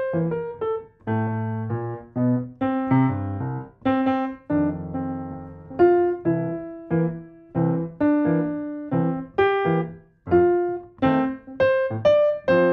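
Kawai grand piano played solo: phrases of single notes and chords, with two short breaks, about a second in and about ten seconds in.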